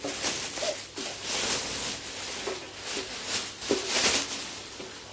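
Clear plastic wrapping rustling and crinkling as it is pulled off a new wooden cajon, in uneven swells with two louder stretches.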